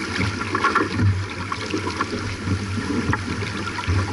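Wind buffeting the microphone in irregular low gusts over water rushing along the hull of a J/24 sailboat under way, with scattered small knocks.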